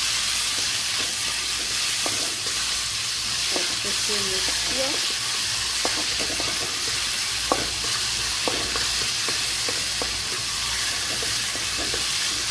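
Garlic and red tomato paste sizzling in hot oil in a metal kadai as a wooden spatula stirs it, with scattered clicks and scrapes of the spatula against the pan, the sharpest about halfway through.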